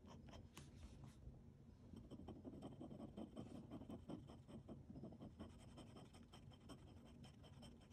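Faint scratching of a glass dip pen's nib on notebook paper: a few short writing strokes, then a run of quick back-and-forth strokes laying down an ink swatch.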